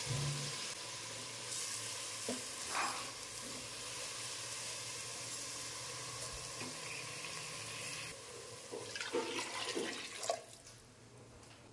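Rice sizzling in hot ghee in an aluminium pressure cooker, a steady hiss with a few scrapes of the spoon. About nine seconds in, water is poured into the pot with a splashing gush that cuts off suddenly.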